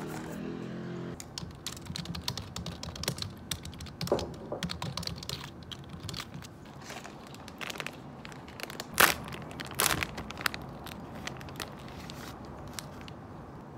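Typing on a computer keyboard: rapid key clicks, with two louder knocks about nine and ten seconds in. Near the end, the thin plastic wrapper of a snack crinkles as it is pulled open.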